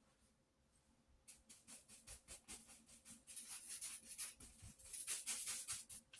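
Paintbrush scrubbing on paper in quick, short scratchy strokes, several a second, starting about a second in and thickening toward the end.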